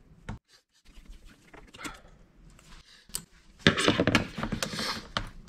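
Parts of a car radio's metal CD mechanism being handled and worked loose by hand: a few faint clicks and taps, then about three and a half seconds in, a second or so of scraping and rattling of metal and plastic.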